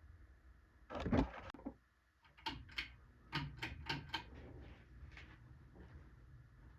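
A series of sharp clicks and knocks, a tight cluster about a second in and then about seven separate clicks over the next three seconds, over the faint steady hum of the ceiling fan's motor.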